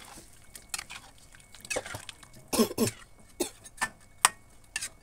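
Spatula stirring chicken feet in sauce in a wok: irregular scrapes and knocks against the pan, about eight in all, the loudest a little past the middle.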